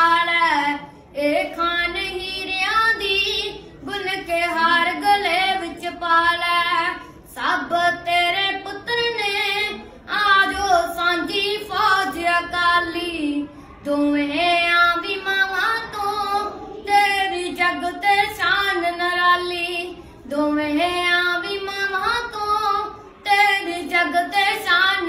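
A boy singing a Punjabi vaar (heroic ballad) unaccompanied, in a high voice, in phrases of about three seconds with short breaks for breath between them.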